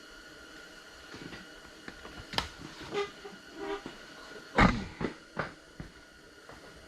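Scattered knocks and clatters with two short squeaks. The loudest is a sharp thump about halfway through, over a faint steady high whine.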